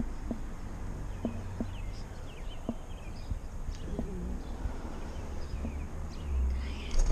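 Wind and road rumble on a bicycle-mounted action camera rolling slowly over asphalt, with a few light knocks and some short high chirps, and a brief louder rush near the end.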